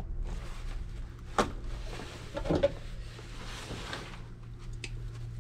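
Small clicks and snaps of hand tools and wiring being worked: one sharp snap about a second and a half in, then a few quick clicks about a second later, over a steady low hum.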